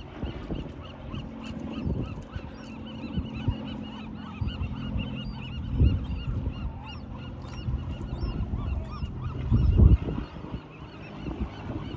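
A dense chorus of seabird calls, many short overlapping cries, over a steady low hum, with two louder low thuds, one midway and one near the end.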